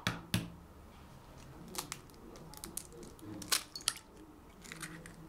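A raw egg being cracked by hand into a glass bowl: a scatter of sharp taps and crunches of breaking eggshell, the loudest about three and a half seconds in.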